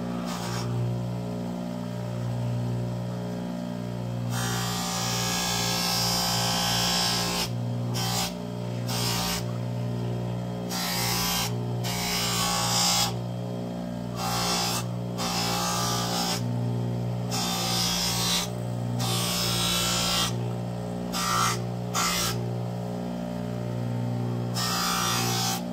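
Electric bench buffer running with a steady hum. The edge of a Kydex holster is pressed against its spinning wheel in repeated passes, each giving a rough hiss. One long pass comes about four seconds in, then shorter passes every second or two.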